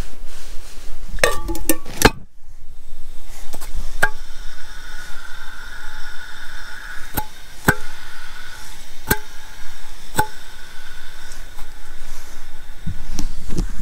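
Gas hissing steadily from the valve of a screw-on camping-stove gas canister, starting about four seconds in, with a few sharp metallic clicks and taps as the canister is handled in its metal pot.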